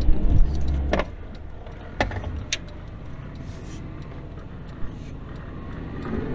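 Car moving slowly, heard from inside the cabin: a steady low engine and road rumble with a few sharp clicks and knocks.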